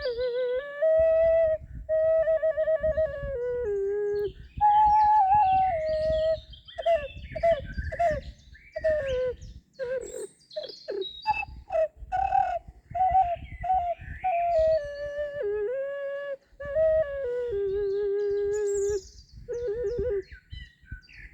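Ocarina playing a slow melody in G# minor pentatonic, tuned to A=432 Hz. Held notes have vibrato, and a run of short, quick notes comes in the middle. Birds chirp faintly in the background.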